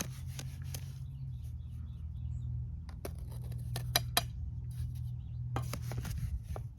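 Sharp metallic clinks and taps of a steel mason's trowel against concrete block and mortar: one about three seconds in, a quick cluster around four seconds and a few more near the end. A steady low hum runs underneath.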